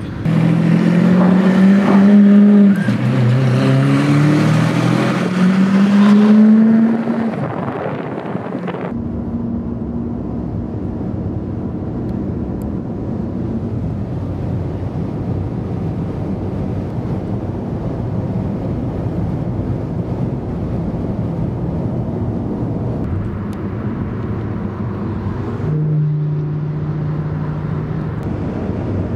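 Lamborghini Murciélago V12 accelerating hard. Its pitch rises, drops at an upshift about three seconds in, then climbs again before fading as the car pulls away. After that comes a steady rush of road and wind noise from a moving car, with another engine briefly heard near the end.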